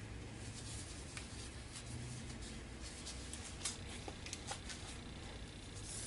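Faint rustling and light clicks as a cartridge respirator dust mask is handled and put on, over a low steady hum, with one sharper click about three and a half seconds in.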